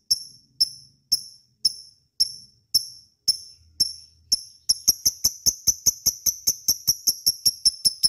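Lovebird giving a run of sharp, high, evenly spaced chirps, about two a second, then speeding up to about four a second and growing louder just before the midpoint.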